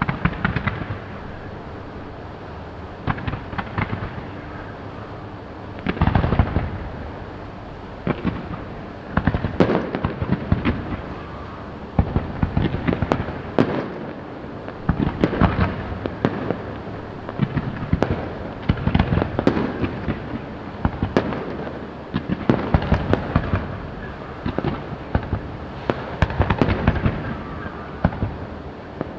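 Aerial fireworks display: shells bursting in irregular clusters of sharp bangs and crackling, every second or two, with echoing trails after the louder bangs.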